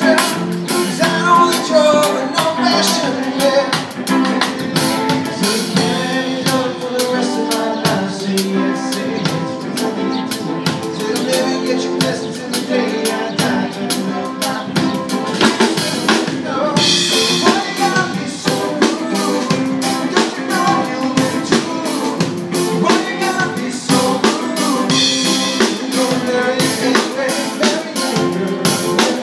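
Live band playing at full level: electric guitar and bass guitar over a drum kit keeping a steady beat.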